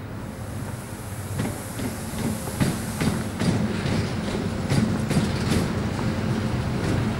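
A single locomotive running light, approaching and growing louder, with a steady low rumble and hum. From about a second and a half in, its wheels click sharply over rail joints, more often and louder as it nears.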